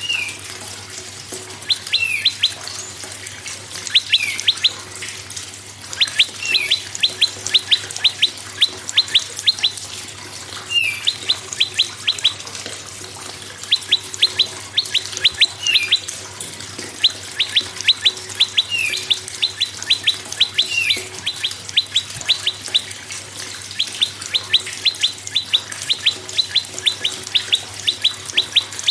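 Prenjak songbird singing: repeated phrases every couple of seconds, each a quick run of sharp ticking notes, several of them with a short falling note.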